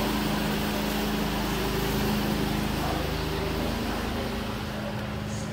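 A steady mechanical drone with a low, even hum and a broad rushing noise above it. It eases off slightly near the end.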